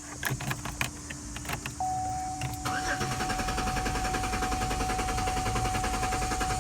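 Pontiac Grand Am GT engine being cranked by the starter, with a steady rhythmic churning that never catches: it cranks but won't start, which the owner puts down to a fuel or spark problem. A few clicks come first, and a steady electronic tone sounds from about two seconds in.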